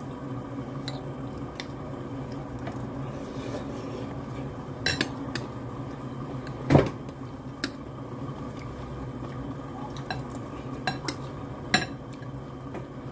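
Metal fork and spoon clinking and scraping against a glass bowl of noodles: scattered sharp clicks, the loudest about seven seconds in, over a steady low hum.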